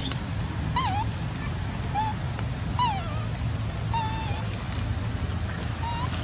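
Baby long-tailed macaque crying: short, high, wavering whimper calls about once a second, the crying of a youngster being refused milk by its weaning mother. A brief sharp squeal comes right at the start, and a steady low hum runs underneath.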